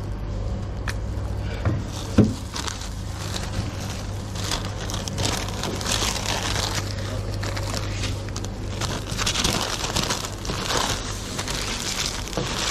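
Sandwich paper and plastic food-service gloves crinkling and rustling as a sandwich is wrapped and bagged, over a steady low hum. A couple of sharp knocks come about two seconds in.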